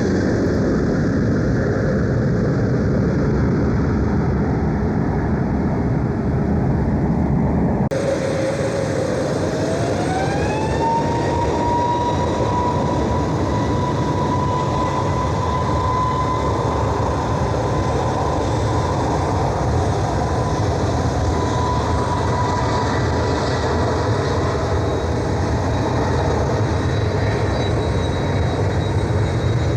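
Jet airliner engines running loud and steady at close range. About 8 seconds in the sound changes abruptly, and an engine whine then rises in pitch over a few seconds and holds steady as the engines spool up.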